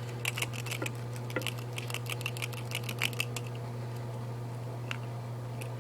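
Double-aught buckshot pellets clicking and rattling as they are shaken out of a cut-open shotgun shell: a quick run of small clicks over the first three seconds or so, thinning to a few scattered clicks near the end.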